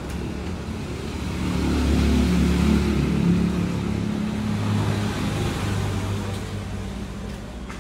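Low hum of a passing motor vehicle's engine. It swells a second or two in and fades toward the end.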